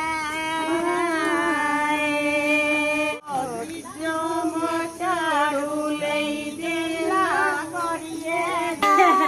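Women's voices singing a devotional song in long, held notes, with a brief break about three seconds in.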